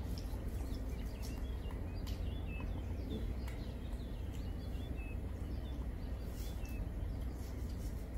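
Small birds chirping in short, high, repeated notes over a steady low hum, with a few faint clicks.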